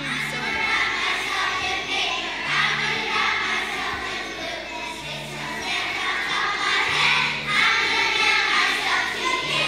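A large choir of young children singing together in unison over an instrumental accompaniment, with a low bass note recurring every two seconds or so.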